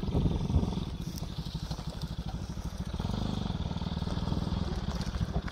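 Motorcycle engine running as the bike rides along a rough dirt trail, a steady rapid pulsing that grows a little louder about three seconds in as it comes closer.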